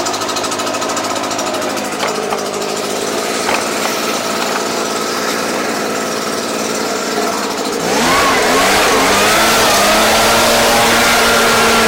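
Husqvarna 360BT backpack blower's two-stroke engine idling steadily, then opened up on the newly fitted throttle lever about eight seconds in: the pitch rises and wavers as it revs and the rush of air from the blower tube grows much louder. The throttle is responding after the lever assembly repair.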